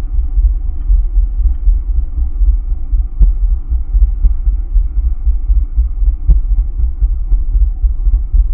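Deep, throbbing low bass pulse under a faint steady hum, the drone-like background track of the video.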